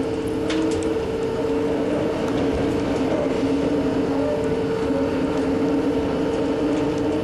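Bucket wheel excavator running in a lignite pit: a steady mechanical drone with two constant whining tones, and a few sharp metallic ticks, the clearest about half a second in.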